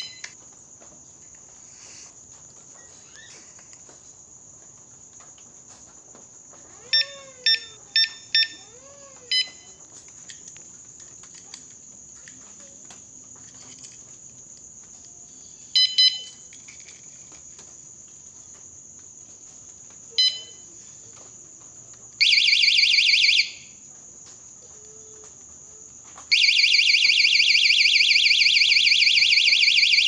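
Electronic bicycle cable alarm lock beeping, single beeps and quick runs of four or five, then its siren sounds loudly for about a second. After a short pause the siren starts again and keeps going, a fast pulsing electronic alarm.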